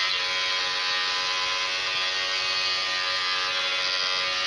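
Electric beard trimmer running with a steady buzz as it cuts through a thick goatee.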